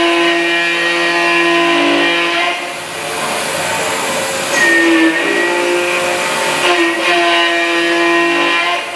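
CNC milling machine (MillStep PA1070V3 Z300) thread-milling an aluminium block: a steady whine of several tones from the spindle and axis drives, with a rougher cutting noise and a brief higher tone in the middle of the pass.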